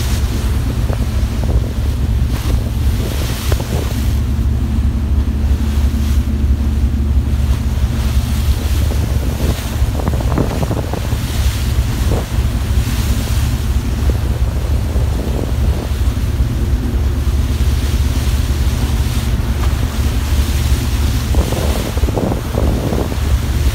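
A ship's wake churning and rushing past the hull, with wind buffeting the microphone in gusts. Under it a steady low drone from the ship's engine.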